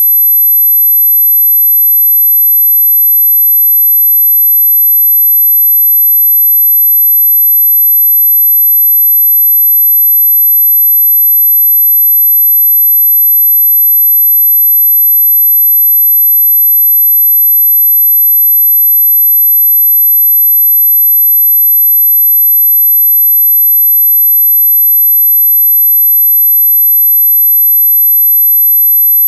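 A continuous, high-pitched 12 kHz pure sine tone, steady in pitch and level.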